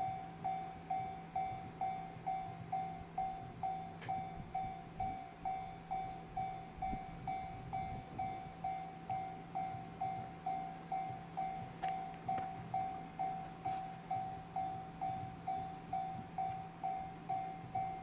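Japanese railway level-crossing warning bell ringing steadily, a high ding repeating a little over twice a second: the crossing is closed for an approaching train.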